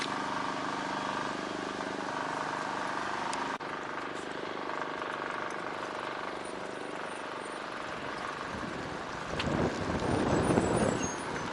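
Street traffic with a motor vehicle's engine running and humming steadily, then wind buffeting the microphone for about two seconds near the end.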